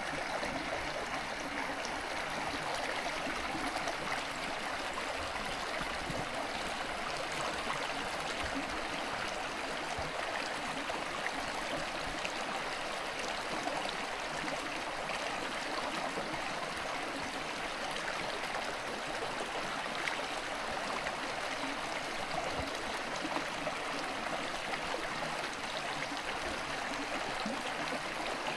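A mountain stream running steadily, a constant even rush of water.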